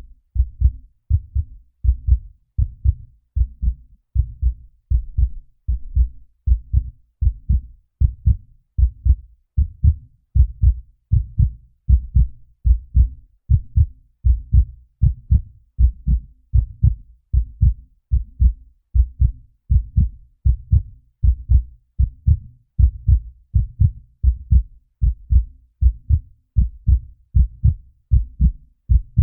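Heartbeat sound effect: a steady lub-dub, each beat a close pair of low thumps, repeating evenly about once a second.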